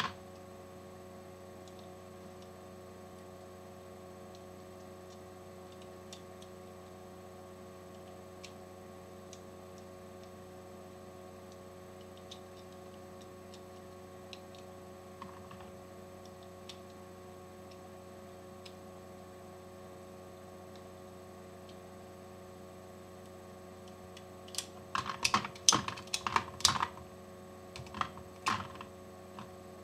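A steady low hum with a few faint ticks, then, near the end, a quick run of sharp metallic clicks and clacks as brass is handled and a Hornady Lock-N-Load AP progressive reloading press is worked.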